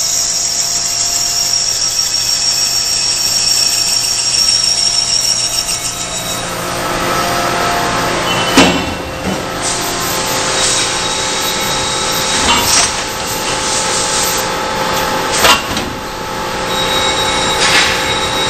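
Bardons & Oliver automatic tube cut-off lathe running on 4-inch stainless tube. A steady high whine lasts about the first six seconds, then the machine noise turns rougher and is broken by four loud knocks, the first the loudest.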